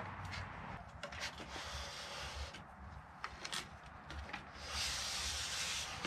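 DeWalt tripod work light being set up: scattered clicks of its legs and sections, then a steady sliding rub from about two thirds of the way in as the telescoping mast is raised.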